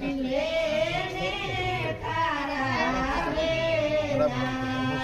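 Voices singing a slow melody with long, wavering held notes.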